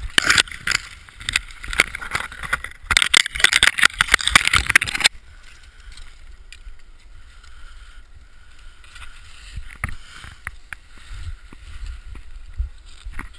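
Loud, rough scraping and rubbing noise with many knocks. It stops abruptly about five seconds in, leaving a faint hiss with a few scattered ticks.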